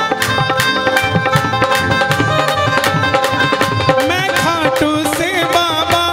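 Live devotional band music: hand drums beat a steady rhythm under held melodic notes, and from about four seconds in a melody line bends and wavers in pitch.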